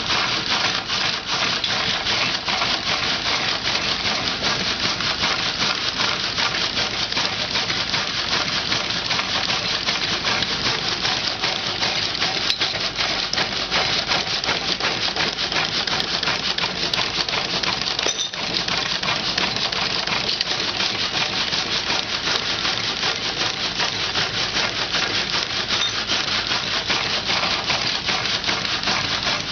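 Water-powered sawmill running: a steady rasping, clattering noise of the mill's saw working through timber, with a brief dip about 18 seconds in.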